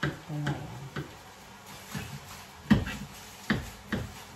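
Kitchen knife slicing mushrooms on a plastic cutting board: about six sharp taps of the blade hitting the board, irregularly spaced.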